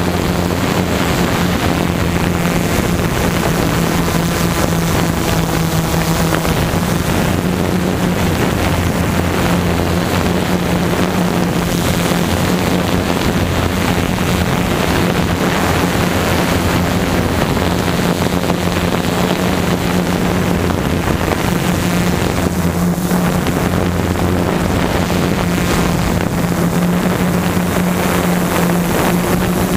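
Tarot multirotor drone in flight, heard from its onboard camera: a steady hum from the motors and propellers, shifting slightly in pitch as it manoeuvres, with wind noise on the microphone.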